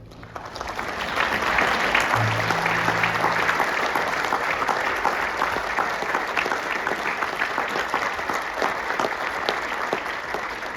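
Audience applauding, swelling over the first second or two, holding steady, then easing off near the end.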